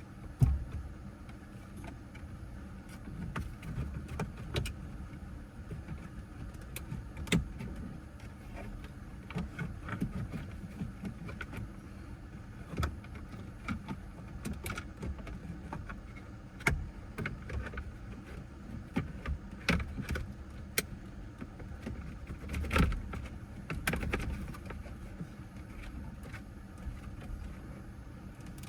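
Plastic dashboard trim panel being handled and pushed into place inside a car: scattered clicks, knocks and rattles at uneven intervals, with a few louder knocks.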